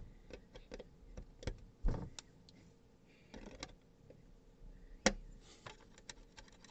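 Scattered light clicks and taps of steel tweezers and fingertips against the plastic sleepers and tie bar of a Peco code 75 model railway point as its tie-bar spring is picked out, with slightly louder knocks about two and five seconds in.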